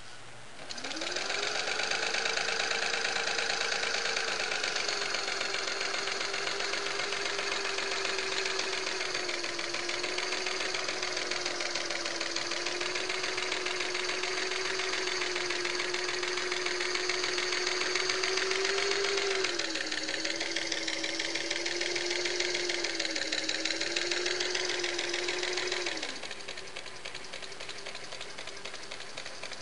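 Singer Model 513 sewing machine running with its underside open: the motor and belt-driven hook and feed shafts spin up about a second in and run with a steady hum and a fast mechanical rattle. The pitch sags a little around twenty seconds in, then drops away about 26 seconds in, leaving a fainter hum, and starts to rise again at the very end.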